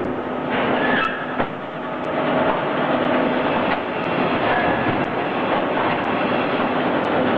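T10-15 concrete block making machine running, a dense steady mechanical clatter with a few sharp knocks, as the press forms the blocks and the fresh blocks are pushed out onto the pallet conveyor.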